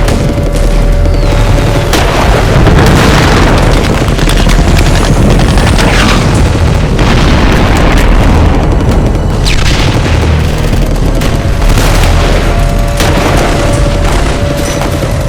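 Battle sound effects: continuous booming explosions and deep rumble, mixed with gunfire.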